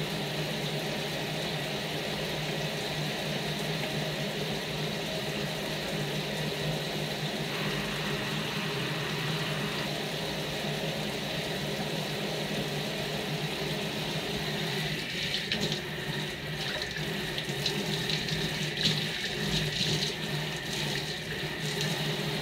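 Water running from a sink faucet, with irregular splashing in the last several seconds as a dyed plastic lens is rinsed under the stream.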